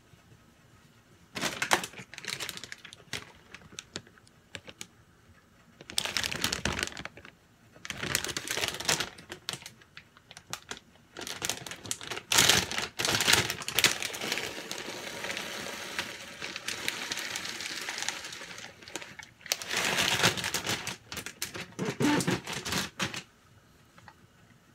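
A plastic granola bag crinkling as it is handled and opened, with dry granola pieces clattering as they are shaken into a fruit-filled blender cup. The noise comes in several bursts, the longest in the middle lasting several seconds.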